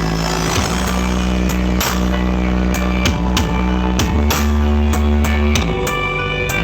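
Loud dance music played through a large carnival sound system of speaker stacks: heavy sustained bass notes that step in pitch every second or so, over a steady drum beat.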